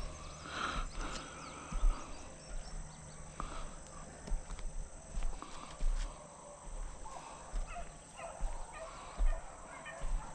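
Footsteps at a steady walking pace on a sandy dirt track, with beagles faintly baying as they run a rabbit.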